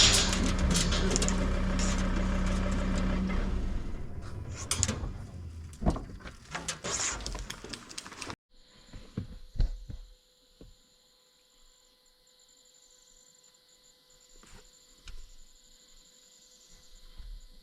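A ute running over rough ground with rattles and knocks, its engine hum dropping away a few seconds in. It cuts off abruptly about eight seconds in to faint night bush sound: a steady high insect trill with a few soft knocks.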